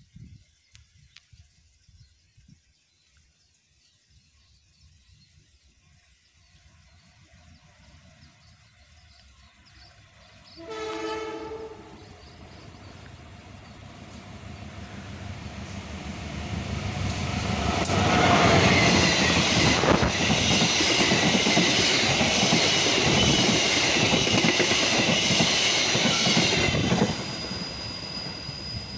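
A train sounds its horn once, a blast of about a second roughly a third of the way in. The train then approaches, growing steadily louder, and runs close past with the noise of its wheels on the rails, which drops away sharply near the end.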